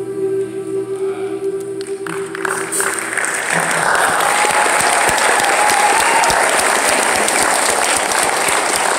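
A choir with acoustic guitars holds its final chord, which dies away about three seconds in. The audience then applauds loudly and steadily.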